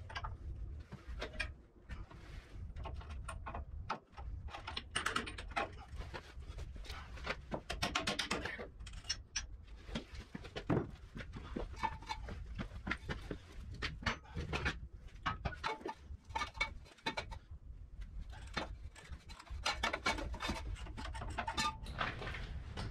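Hand tools working stuck bolts on a Massey Ferguson TO-35's front bolster: an irregular run of wrench clicks and clinks of metal, with short quick clusters of clicks now and then.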